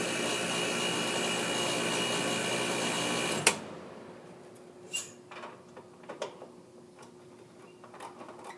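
Air conditioner condenser unit running with its compressor pumping the refrigerant down into the condenser, the high-side valve closed and the contactor held in by hand. It stops suddenly with a sharp click about three and a half seconds in as the contactor is let go, followed by a few faint clicks and knocks.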